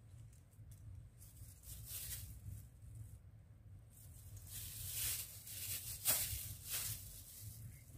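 Clear plastic bag crinkling as it is handled, in several short rustles, the sharpest about six seconds in, over a faint steady low hum.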